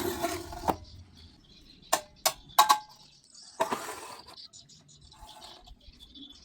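Steel workpieces being handled on a metal bench: a knock at the start, three quick sharp metallic clinks with a short ring about two seconds in, then a brief scrape.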